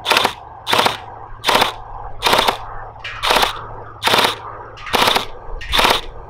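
Electric gel blaster running on an 11 V battery, firing gel balls in single shots: eight sharp mechanical shots at a steady pace of a little over one a second.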